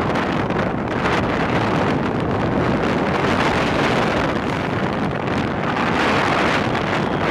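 Steady, loud rush of wind buffeting the microphone on a moving motorcycle taxi, the ride's vehicle noise buried underneath.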